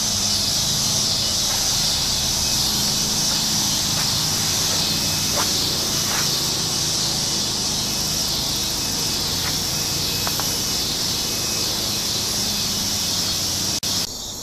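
Steady, high-pitched insect chorus, a dense even hiss with a few faint taps. Near the end it switches abruptly to crickets chirping.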